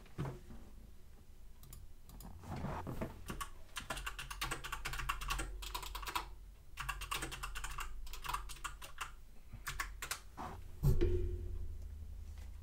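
Typing on a computer keyboard: a run of quick, irregular key clicks that stops after about ten seconds, followed by one louder thump near the end.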